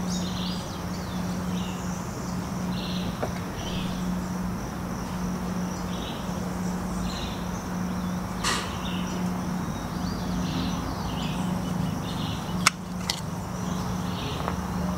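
Insects chirping in a steady chorus, short calls repeating about once a second over a continuous high trill, with a low steady hum beneath. There are a few light clicks partway through and near the end.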